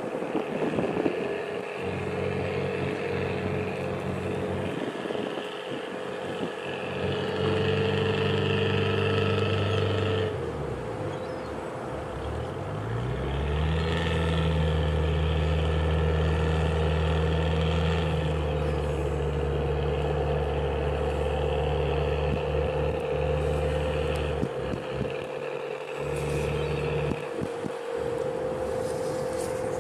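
Fishing tug's diesel engine throttling up and down while manoeuvring to dock: the note drops off about ten seconds in, climbs again a couple of seconds later and holds steady, then falls back and rises once more near the end. A steady whine runs underneath.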